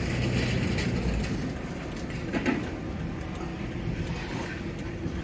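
A vehicle running, a steady low rumble with road noise, with one short knock about two and a half seconds in.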